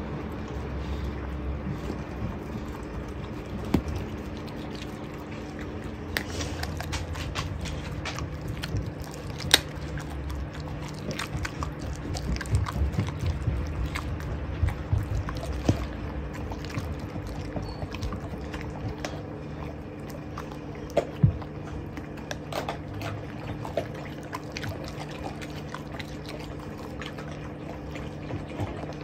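Mastiff puppy chewing raw chicken on the bone: wet chewing with frequent short crunches and cracks, a few of them sharply louder. A steady low hum runs underneath.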